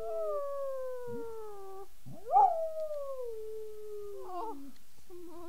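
Dog howling: long drawn-out howls that slide slowly down in pitch. The loudest begins about two seconds in with a sharp upward swoop, and short wavering yowls follow near the end.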